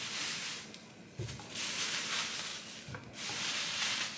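Several long, rough rubbing and scraping sounds with a couple of soft knocks as avocados are handled and set into a bamboo fruit bowl.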